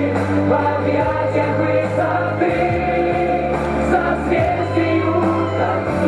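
A song: singing over an instrumental backing with a steady beat.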